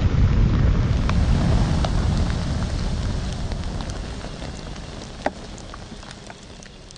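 About 5000 sparklers burning together in a pit in the ground: a dense hiss and rumble with scattered crackles and one sharp pop about five seconds in, fading steadily as the fire dies down.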